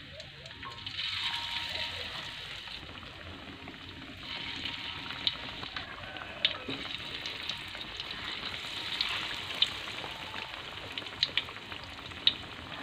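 Batter-coated mung bean dough balls deep-frying in hot oil in a wok: a steady sizzle with occasional sharp pops and crackles.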